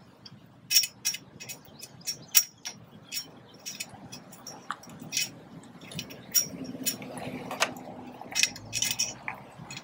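Irregular small metal clicks and clinks, many separate taps with no steady rhythm, as drop-in T-nut mounting hardware is worked into the slotted rail of a roof rack.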